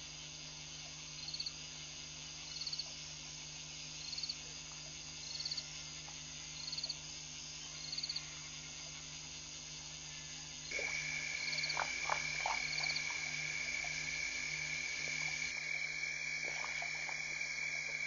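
Night chorus of frogs and insects at a waterhole: a short, high, rattling frog call repeats about every second and a half over a steady insect hum. About ten seconds in, the sound changes to a steady high-pitched trill with a few scattered clicks.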